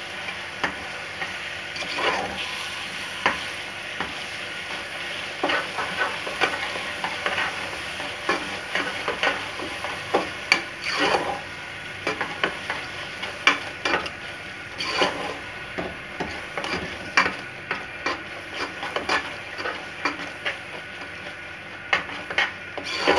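A metal spatula stirring and scraping grated carrots, ghee and khoya around a metal pressure-cooker pot, with irregular clinks and scrapes against the pot. Under them runs a steady sizzle of the carrots frying in ghee.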